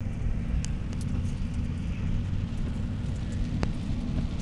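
Low, steady rumble of a car's engine and road noise heard from inside the cabin, with a few faint ticks and a sharper click near the end.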